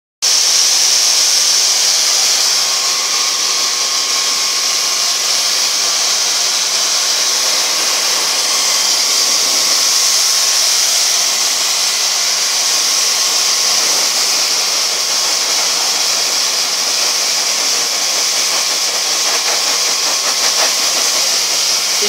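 Handheld hair dryer running steadily, its blowing air a loud, even high hiss with a faint motor hum underneath.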